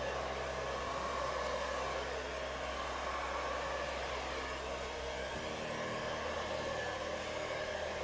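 Handheld hair dryer running steadily, a rush of blown air over a low motor hum, directed at wet acrylic paint on a canvas. The hum shifts slightly about five seconds in.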